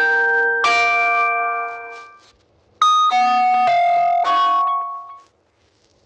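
Two Samsung Galaxy S20 notification tones, one after the other, each a short electronic chime of keyboard-like notes. The first is two notes that ring out and fade within about two seconds. After a brief gap, the second is a quicker run of several notes starting about three seconds in.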